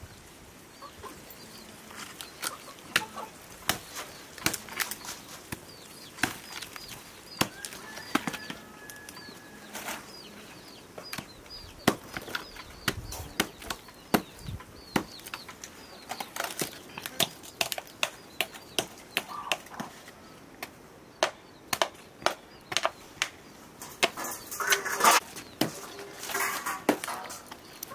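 A long chopping knife striking a dry, rotting log, sharp irregular chops that splinter off wood chips. The chops are sparse at first and come faster in the second half, at times about two a second.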